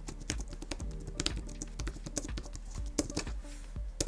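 Typing on a Logitech Keys-To-Go 2 thin travel keyboard: quick, irregular clicks of its low-profile keys, several a second. Background music plays underneath.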